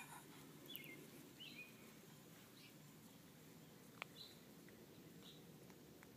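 Faint, short, high-pitched animal chirps or squeaks, about one a second, over quiet outdoor background, with a single sharp click about four seconds in.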